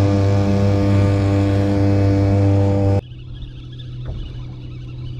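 Boat's outboard motor running at a steady speed, then breaking off abruptly about three seconds in, leaving a quieter steady low hum.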